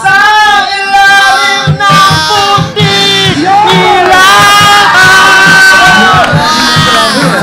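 A man singing loudly into a handheld microphone over music with a steady beat.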